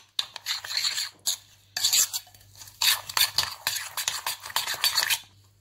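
A spoon stirring and scraping a thick yogurt-and-spice marinade in a glass bowl, with sharp clicks of the spoon against the glass. It comes in three spells with short pauses between them and stops near the end.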